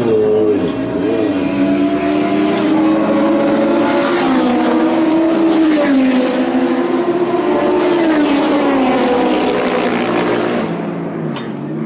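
Racing motorcycle engines running, their pitch rising and falling as they rev. The sound thins out near the end, followed by a single sharp click.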